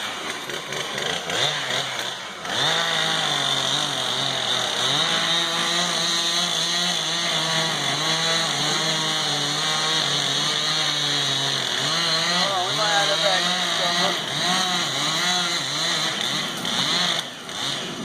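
Chainsaw running under load, cutting into a dead pine tree, starting about two seconds in. Its engine note holds high and wavers up and down as the cut loads it, then falls away near the end.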